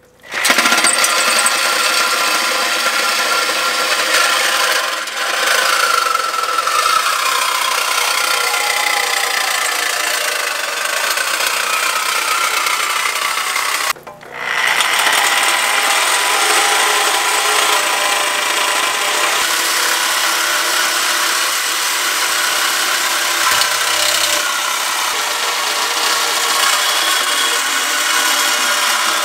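Corded DeWalt reciprocating saw with a fresh blade cutting through an aluminum bicycle frame tube: a steady, loud rasping buzz of the blade in the metal. Its whine sinks slowly in pitch for several seconds, and the saw stops briefly about halfway through before cutting on.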